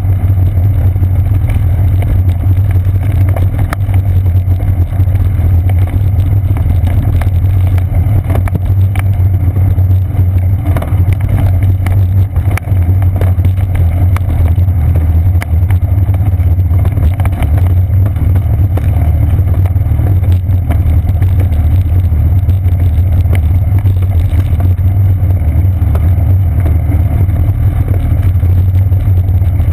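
Bicycle rolling fast over a wooden boardwalk, picked up through the seat post by a GoPro Hero 2 in its housing: a loud, steady low rumble of vibration, with frequent small clicks and knocks as the tyres cross the planks.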